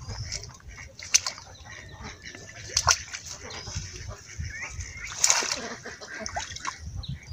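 Feet splashing and sloshing through shallow water and wet grass, with three sharp splashes about one, three and five seconds in, the last the longest and loudest.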